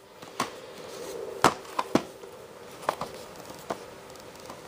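Handling noise: about six sharp clicks and knocks at uneven intervals over a steady low hum.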